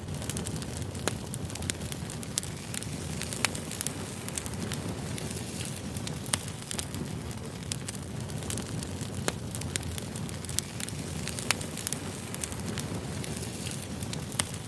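Wood fire burning: a steady low rumble of flames with frequent sharp, irregular crackles and pops from the burning logs.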